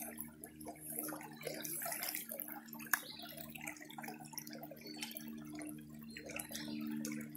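Plastic gold pan being swished through creek water: irregular sloshing and splashing, with a few small clicks, one sharper about three seconds in. A low steady hum runs underneath.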